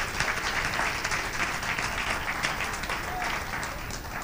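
Audience of a hundred or so diners applauding: many hands clapping in a dense crackle that slowly dies down near the end.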